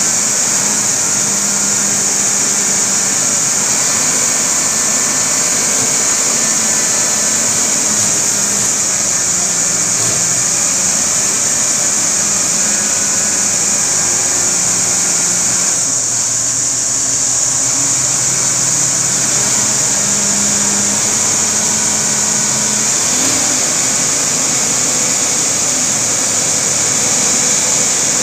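Diesel engine of a 50-tonne truck crane running under load as it hoists a heavy cable drum, its pitch rising and falling with the throttle. A steady high-pitched hiss sits over it throughout.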